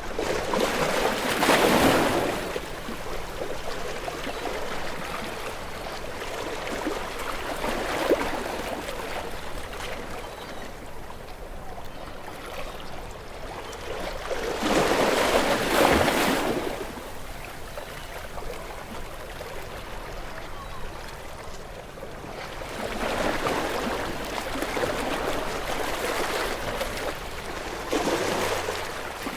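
Ocean waves washing against rocks, a continuous surge of water with separate waves breaking and swelling louder about a second in, around halfway through, and twice in the last third.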